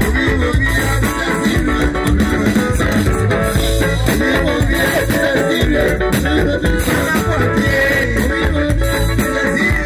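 Live band playing instrumental dance music over a steady, pulsing bass beat.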